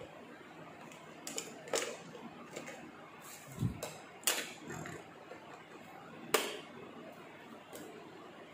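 Sharp plastic clicks and knocks from handling a Radiolink AT9S radio-control transmitter while a battery is fitted into its rear battery bay, with a dull thump about three and a half seconds in and the loudest click a little past six seconds.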